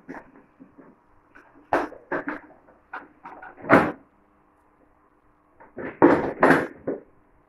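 Plastic ride-on toy car knocking and clattering as a toddler pushes it across the floor and climbs onto it: a string of sharp knocks with smaller clicks between, the loudest about two seconds in, just before four seconds, and a cluster of several near the end.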